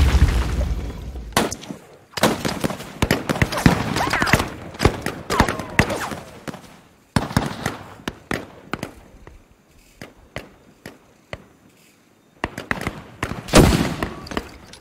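Gunfire in a firefight: scattered rifle shots and short bursts at irregular intervals, with the tail of an explosion dying away at the start and a louder blast near the end.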